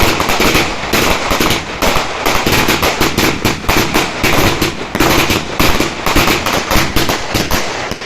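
Fireworks going off in a continuous rapid volley of crackling bangs, many reports a second with no break.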